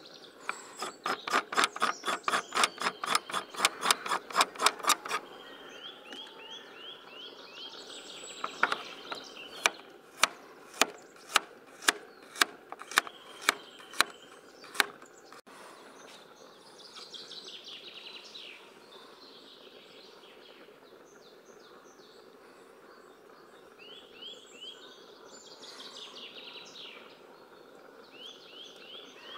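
Böker Plus Sanyougo kitchen knife chopping vegetables on a plastic board: first a fast run of about twenty chops, then, after a few seconds' pause, about ten slower, evenly spaced cuts, about two a second, slicing a carrot. The second half has no chopping, only birds chirping in the background.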